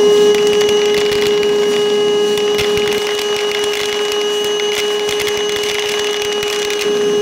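Milwaukee M18 cordless toolbox vacuum running with a steady high whine while its hose sucks up 5/16 hex nuts, which clatter and rattle up the hose from about half a second in until near the end.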